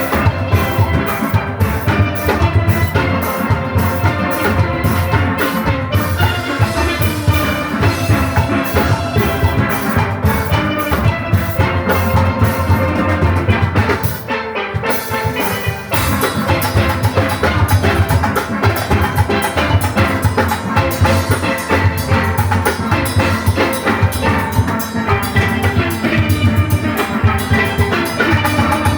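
A full steel orchestra playing live: massed steelpans over drum kit and rhythm-section percussion. The percussion briefly drops out about halfway through, then the full band comes back in.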